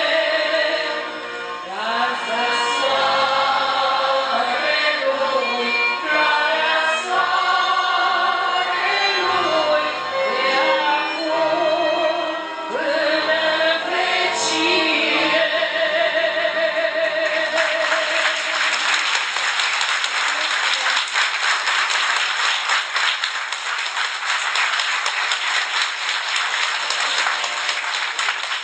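A woman sings a Romanian folk song into a microphone with violin accompaniment. The song ends about two-thirds of the way in, and the audience applauds for the rest.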